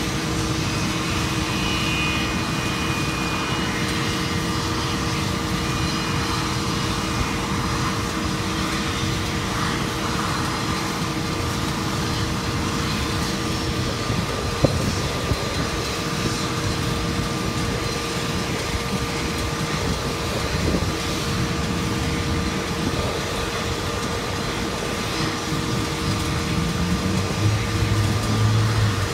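Steady jet engine noise from a McDonnell Douglas MD-88 taxiing past on its rear-mounted Pratt & Whitney JT8D engines, over a continuous ramp hum with two steady tones. A single sharp click comes about halfway, and a deeper engine sound swells near the end.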